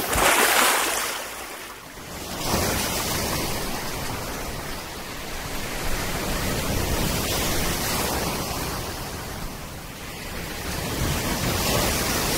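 Sea surf: waves washing and breaking as a rushing noise that swells and eases every few seconds.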